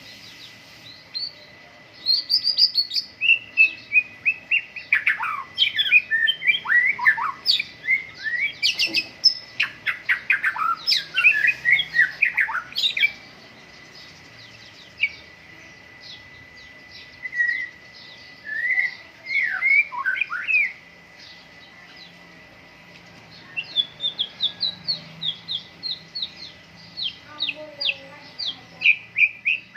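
White-rumped shama (murai batu) singing: long bouts of fast, varied whistled phrases with steep sweeping notes, broken by short pauses, and near the end a quick run of short repeated notes. A faint steady high tone sits underneath.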